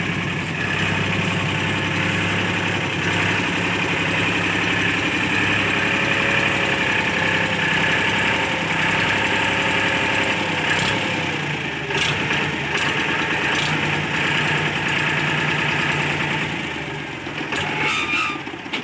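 Diesel engine of heavy machinery running steadily. Its pitch shifts about halfway through, and a few sharp knocks come about two-thirds of the way in.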